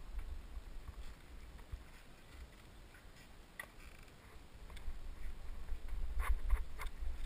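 Mountain bike rolling along a dirt trail, heard from a helmet camera: a low wind rumble on the microphone with scattered clicks and rattles from the bike and tyres on dirt. It grows louder from about five seconds in as the rider picks up speed.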